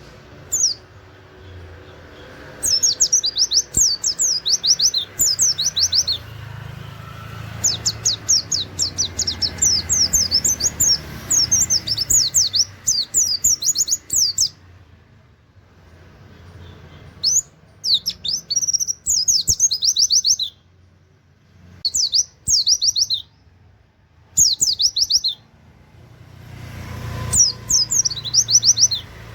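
Pleci (white-eye) singing in the rapid 'nembak' style: bursts of fast, high, down-sweeping notes in about six phrases, with short pauses between them.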